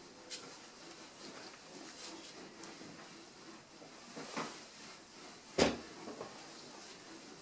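Handling sounds at a stained-glass bench: light clicks and taps of a hand tool and lead came strips on the wooden workbench, with one sharp knock about five and a half seconds in and two lighter knocks right after it.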